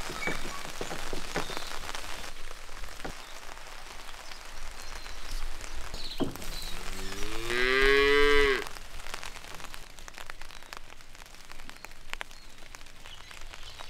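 A cow mooing once, a single long call that rises in pitch and then holds, about halfway through. Otherwise only faint knocks.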